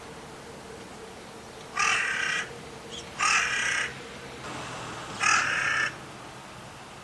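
Carrion crow calling: three harsh caws of about half a second each, roughly a second and a half apart.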